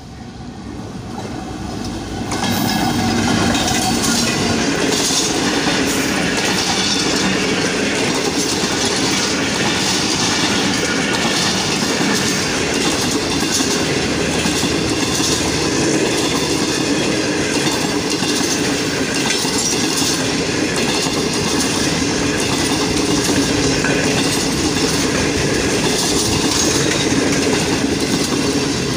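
Green Line Express passenger train passing close by at speed. The sound swells over the first two seconds as the train arrives, then holds loud and steady as the coaches run past.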